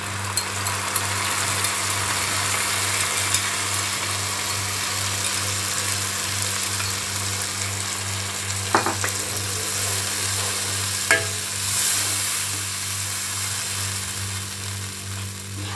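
Spiced yogurt marinade sizzling steadily in hot oil as it is poured into a non-stick kadhai over fried onions and stirred in with a spoon. A steady low hum runs underneath.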